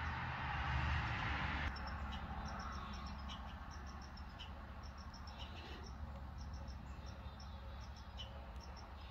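Yard ambience: a rushing noise that cuts off abruptly a little under two seconds in, then faint, high, short chirps repeating over a steady low rumble.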